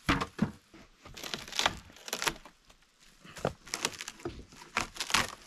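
Wood and bark cracking and tearing as pieces are pulled loose by hand: a string of irregular sharp snaps and crunches.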